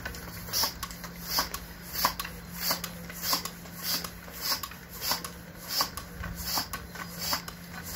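Floor-standing bicycle pump being worked by hand to inflate a tyre, with a hissing rush of air on each stroke in a steady rhythm of about three strokes every two seconds.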